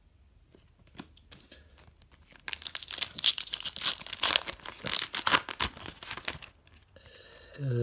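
Hockey card pack wrapper being torn open and crinkled by hand: a few faint handling clicks, then about four seconds of loud crackly tearing and crumpling.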